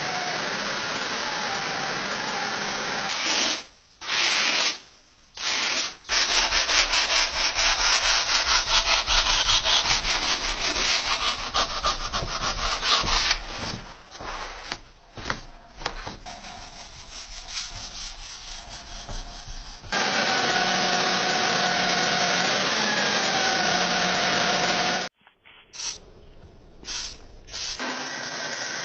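Steel knife blade, cut from an old saw blade, being sanded in several short segments joined by abrupt cuts. A steady abrasive rasp carries a faint wavering whine at times, with a stretch of quick back-and-forth strokes in the middle.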